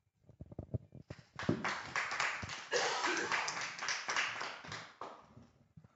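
A small group of people applauding by hand-clapping. It starts with a few scattered claps, becomes full applause about a second in, and dies away near the end.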